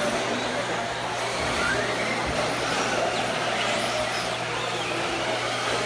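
Electric RC monster trucks (Redcat Volcano EPX Pro) racing on a dirt track: their brushless motors whine, rising and falling in pitch with the throttle, over a steady wash of tyre and track noise.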